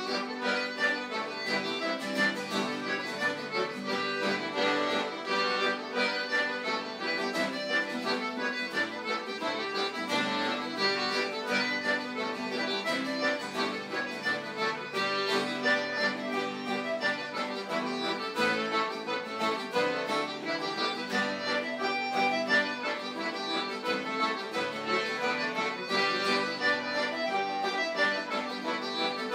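Live traditional session music played at a steady dance rhythm, with an accordion to the fore.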